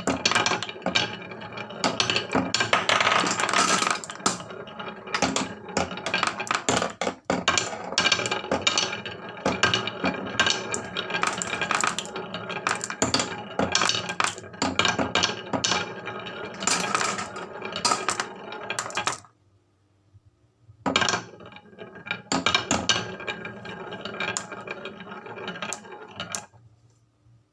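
Many marbles rolling and clattering down HABA wooden marble-run slopes: a dense stream of clicks and rattles. It stops for about two seconds around nineteen seconds in, starts again, and dies away near the end.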